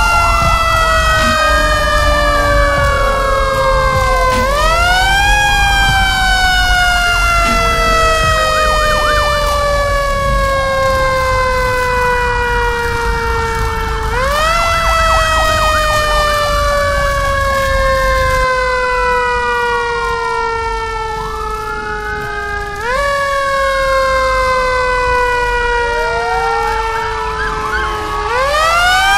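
Two fire-engine sirens wailing together: one rises sharply and then falls slowly, starting over about every nine seconds, while the other rises and falls in shorter arches every few seconds.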